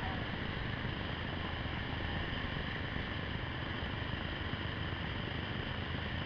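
Whitewater rushing steadily down a small river cascade into a pool, an even noise with no change.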